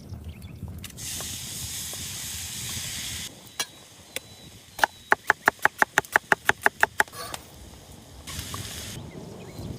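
A knife chopping quickly on a board: a fast run of about fifteen sharp, ringing chops, about seven a second, between two stretches of hissing noise.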